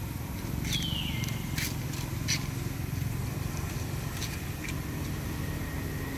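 A steady low rumble, with a few sharp high clicks and one short squeak that falls in pitch about a second in.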